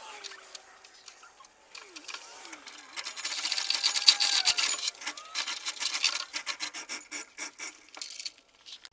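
Chain hoist lifting a load. About three seconds in the chain rattles and rasps through the hoist, then a run of sharp, regular clicks follows, about four a second, and stops shortly before the end.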